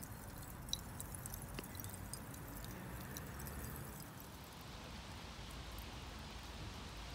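Faint crackling of a freshly lit grilling fire, with scattered small pops. About four seconds in it gives way to a steady hiss.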